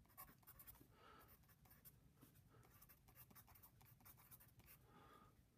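Faint scratching of a wooden pencil writing on paper, a quick run of short strokes as words are written out.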